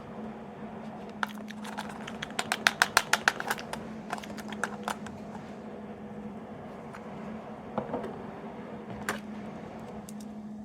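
Small hard objects being handled: a quick, even run of about a dozen sharp clicks about two seconds in, then scattered single clicks and taps, over a steady low hum.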